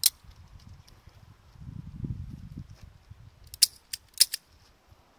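Smith & Wesson 929 revolver being handled: a sharp metallic click as the cylinder closes, a brief low rumble, then four quick sharp clicks in under a second while the gun is held out at arm's length.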